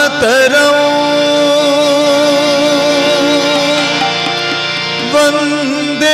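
A man's voice singing a Hindi song, with a wavering, ornamented phrase that ends about half a second in. Held, steady instrumental notes over a low drone follow, and a new note comes in about five seconds in.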